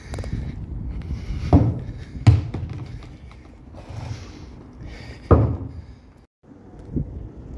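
Several sharp thuds, about four in all and a second or more apart, over steady low rumbling from wind and handling on the microphone of a handheld camera being moved about.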